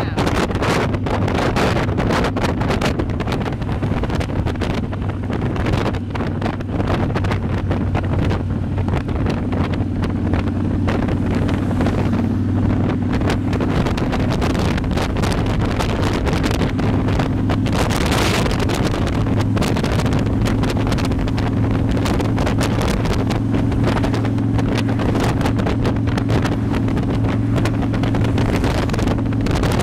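Motorcycle engine running steadily at cruising speed, heard from the bike under heavy wind buffeting on the microphone. A brief louder rush of noise comes about two-thirds of the way through.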